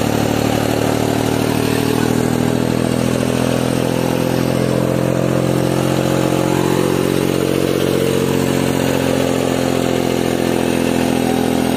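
New Holland 3630 tractor's diesel engine running steadily at low revs, its pitch drifting only slightly.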